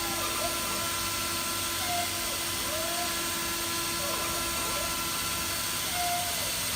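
Mazak FJV-20 machining center running: a steady hum with several fixed tones, over which short whines glide up and down roughly once a second.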